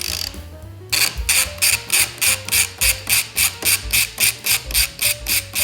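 Ratchet wrench clicking steadily as it backs out the bolt holding the bar end in the motorcycle's handlebar, about four to five clicks a second, starting about a second in.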